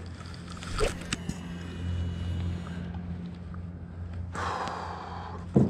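Electric trolling motor on a small fishing boat running with a steady low hum. A short rushing noise comes about four and a half seconds in, and a sharp knock comes near the end.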